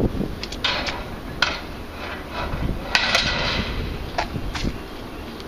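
A string of sharp clanks and knocks from equipment being handled, the loudest about three seconds in, with a brief ring after it.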